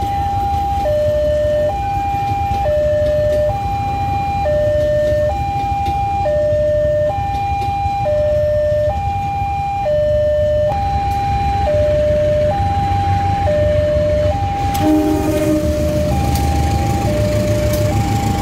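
Railway level-crossing warning alarm sounding an alternating two-tone high–low chime, each tone held just under a second, over a steady low rumble. About fifteen seconds in there is a short clatter, and the low rumble grows as a CC 201 diesel-electric locomotive approaches the crossing.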